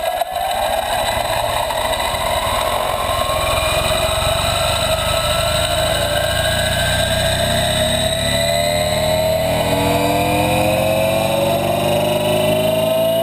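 Helicopter in flight: a turbine whine slowly rising in pitch over a steady low rotor beat.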